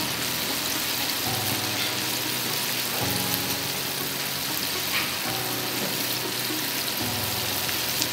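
Chicken skin coated in cornstarch deep-frying in hot oil in a wok, a steady dense crackling sizzle as it is fried until fully dry and crisp.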